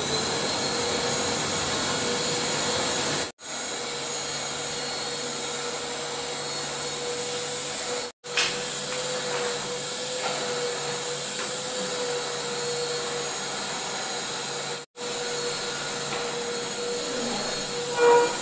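Steady mechanical hum and hiss with one held mid-pitched tone, like room ventilation or machine noise. It cuts out briefly three times, and there is a short louder knock near the end.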